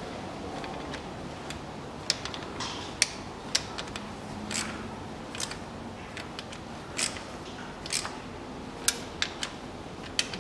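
Irregular sharp clicks and clinks of a small hand socket tool on the bolts of a CVT oil pan, as the bolts are snugged down one after another.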